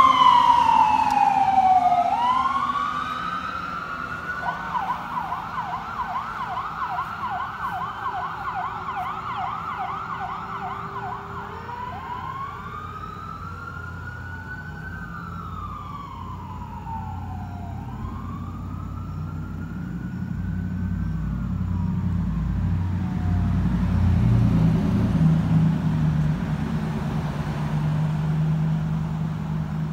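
Survival Flight ambulance siren passing and moving away: a falling wail, then a fast yelp from about 4 to 12 seconds, then slower rising and falling wails that fade out by about 23 seconds. Low rumble of passing cars from about 20 seconds on.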